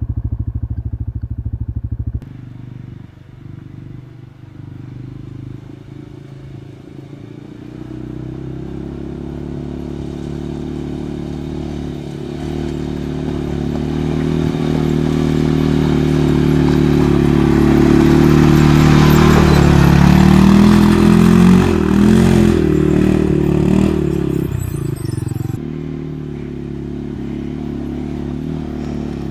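A close engine runs steadily and cuts off abruptly about two seconds in. Then an ATV engine approaches along a gravel track, growing steadily louder and revving up and down at its loudest past the middle, before easing off again.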